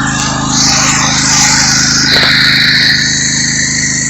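Riding lawn mower's small engine running steadily at close range, with a loud rushing hiss over it that swells about half a second in.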